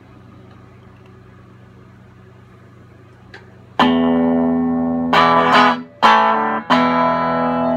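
'52 Telecaster played through a 1958 Supro 1690T tube amp. The amp hums quietly and steadily for a few seconds, then a few loud strummed chords ring out one after another.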